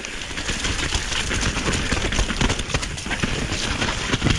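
Mountainboard wheels rolling fast over rough, snowy ground: a steady rumbling noise with constant irregular clattering and knocks.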